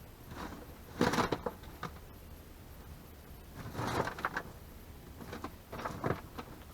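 Short rustling and clattering of scrap wire pieces being handled and sorted, in three brief bursts.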